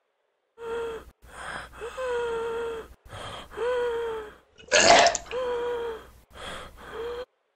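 A cartoon character's voice making about seven strained gasps and moans, each a short held note, with a harsh, louder rasping burst about five seconds in. It is the wet, laboured breathing of a character whose face has been bitten off.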